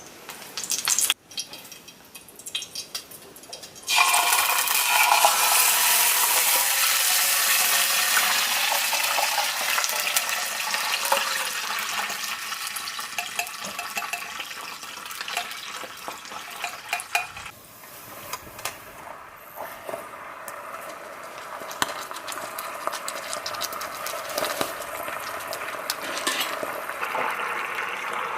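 Food frying in a pan: a loud sizzle starts suddenly about four seconds in, after a few light knocks, and eases off a little after the midpoint.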